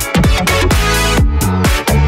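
Electronic dance music with a deep, stepping bass line and a steady beat.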